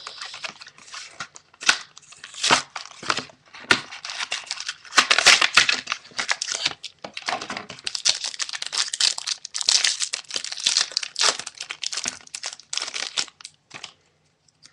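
A trading-card booster pack in plastic blister packaging being crinkled, cracked and torn open, in irregular bursts of crackling and ripping that die away shortly before the end.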